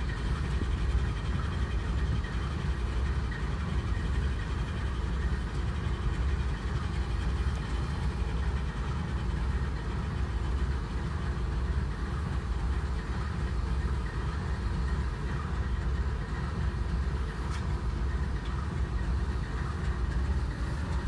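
Diesel-electric freight locomotives idling while standing still, a steady low rumble with a faint hum above it.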